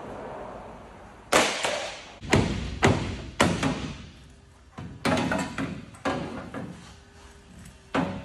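Hammer blows on a rusted sheet-steel vehicle body panel: about ten hard, unevenly spaced metallic strikes, each ringing briefly, as the panel is knocked loose and bent away from the body.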